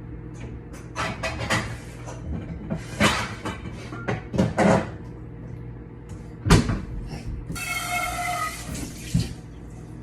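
Kitchen clatter as a cooking pot is handled: several knocks and clanks, then a sharp, loud clunk about six and a half seconds in. A brief rush of running water with a whistling tone follows near eight seconds, over a steady low hum.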